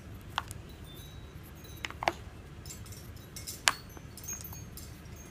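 A few light, sharp clicks and clinks of drawing tools knocking against each other and the table as they are handled. The loudest click comes about two thirds of the way through.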